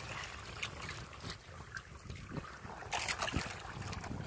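Sea water lapping and splashing against a small outrigger boat's hull, with wind rumbling on the microphone and a few short splashes, the strongest about three seconds in.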